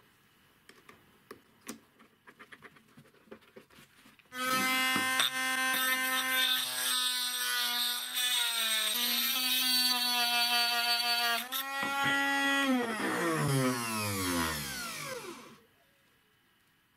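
Homemade rotary tool built from an old blender motor starts about four seconds in and runs with a steady high whine while a cone grinding stone in its chuck grinds the inside edge of a steel tube; the pitch wavers slightly as the stone bears on the metal. About thirteen seconds in it is switched off and winds down with a falling whine. Light clicks and knocks come before it starts.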